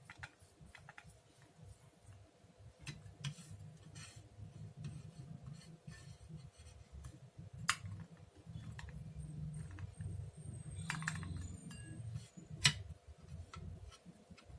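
Grated ginger being squeezed by hand to press out its juice: faint, soft handling and squeezing noise, with two sharp clinks of glass or dishware, about eight and thirteen seconds in.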